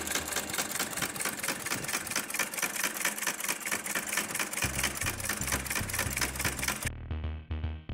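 A 1950 Singer sewing machine running, a fast, even clatter of needle strokes. Background music with a bass beat comes in about halfway, and near the end the clatter gives way to the music alone.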